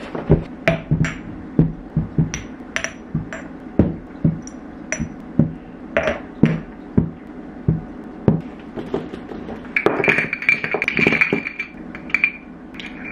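Glass spice jars clinking and knocking against each other and a hard surface as they are handled, irregular sharp clinks about two a second, some with a short high ring.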